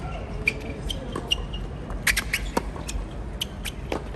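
Tennis rally on a hard court: sharp pops of racquets striking the ball, with tennis shoes squeaking on the court surface.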